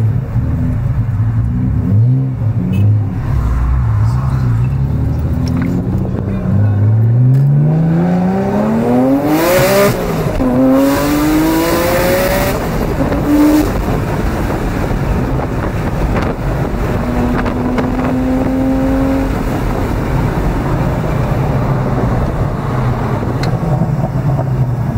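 Modified 680-horsepower Acura NSX's V6 engine running at low revs, then pulling hard about seven seconds in, revs climbing steeply, with a loud hissing rush for a few seconds at the top. It then settles back to steady low running.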